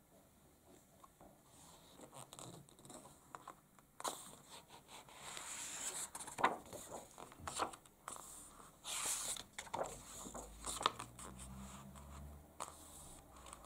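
Pages of a paperback picture book being handled and turned: paper rustling and sliding, with a few sharp taps, from about four seconds in.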